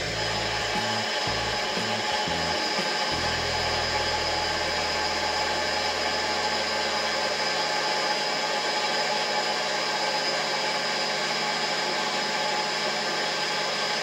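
Optical lens-cutting machine running steadily as it drills and shapes a 1.74 high-index eyeglass lens: an even motor whine over a hiss, with a low rumble that drops away in the first few seconds.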